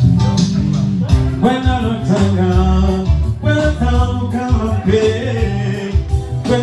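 Music: a singer's voice over a band with guitar and a heavy bass line.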